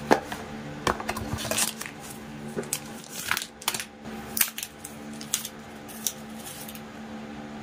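Unboxing handling noises: cardboard boxes and a plastic-and-metal extension rod being picked up, knocked and turned in the hands, giving a string of scattered clicks and taps over a steady low hum.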